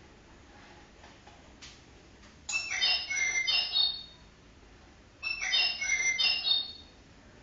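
Bird-song cuckoo clock sounding the hour with bursts of chirping bird calls instead of a cuckoo call: a couple of small clicks, then two bursts about a second and a half long, a couple of seconds apart.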